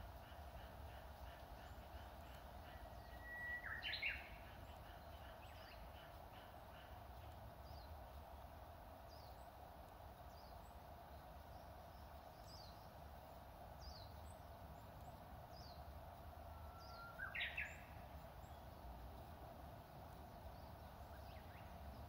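Japanese bush warbler (uguisu) singing its 'hoo-hokekyo' song, faint, twice: about four seconds in and again about seventeen seconds in. Each song is a long held whistle that breaks into a quick rising flourish. Thin, high down-slurred chirps from another small bird repeat throughout over a steady low background hum.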